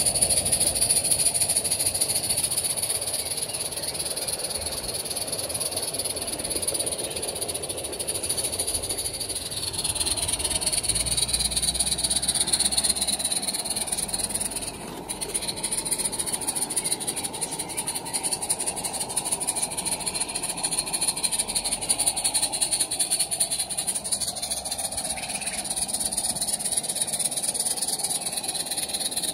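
Live-steam garden-railway tank locomotive running with its train, its steam hissing and chuffing steadily.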